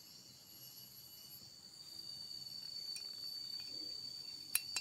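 A steady, high-pitched insect trill, like crickets, in the background, with a few light clicks, the sharpest near the end.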